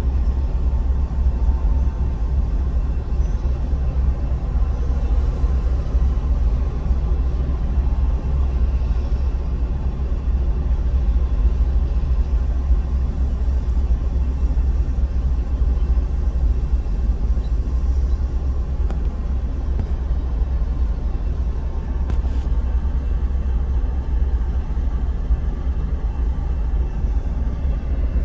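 Steady low rumble heard from inside a stopped car's cabin as a long Union Pacific freight train of covered hopper cars rolls past, mixed with the car's own idle.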